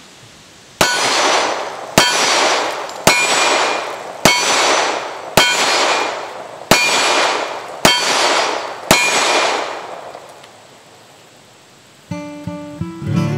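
Eight pistol rounds hitting a steel silhouette target, about one a second. Each hit is a sharp clang followed by a second of metallic ringing. Acoustic guitar music starts near the end.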